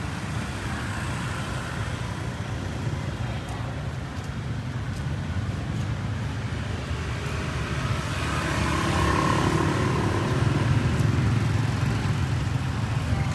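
Street traffic noise: a steady low rumble of passing vehicle engines, growing louder from about eight seconds in.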